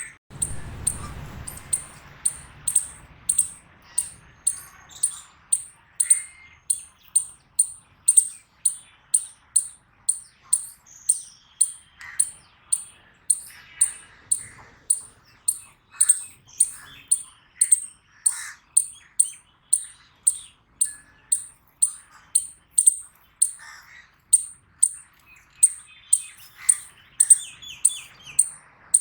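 Eastern chipmunk giving its sharp, high-pitched chip call over and over in a steady rhythm, about two chips a second: the repeated chipping it uses as an alarm call. Fainter, lower chirps are heard between the chips, and a low rumble in the first couple of seconds.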